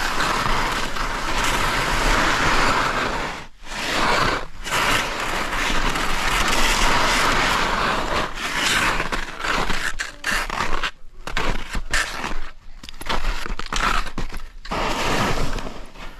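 Skis sliding and scraping over snow on a downhill run: a loud, steady hiss broken by a few short pauses.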